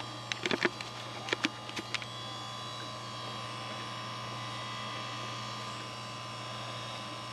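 A few light clicks and knocks of cables and plugs being handled behind a desktop PC in the first two seconds, then the steady hum of the computer's fans and drive as it runs on, still shutting down.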